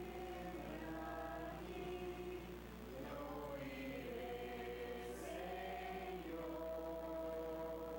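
A choir singing slow, held notes, each lasting about a second or more before the voices move to the next pitch.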